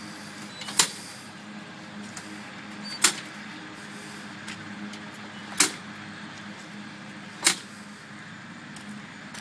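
Four sharp clacks a couple of seconds apart as the propeller of a Kinner B5 radial engine is pulled through by hand during a cold start, the engine not yet firing. A steady low hum runs underneath.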